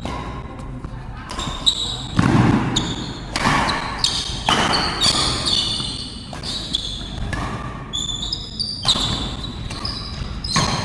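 Badminton rally: sharp racket strikes on the shuttlecock come every half second to a second, with high, short squeaks of shoes on the court floor and voices in the background.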